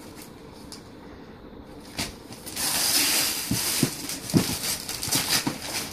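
Gift wrapping paper being torn off a present: quiet at first, then a couple of seconds in a loud ripping and rustling of paper that tails off near the end.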